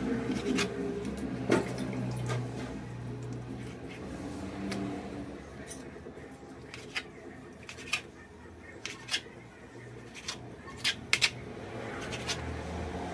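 Chef's knife cutting through raw chicken breast and tapping on a plastic cutting board: short, sharp taps at an uneven pace, a cluster of the loudest ones near the end.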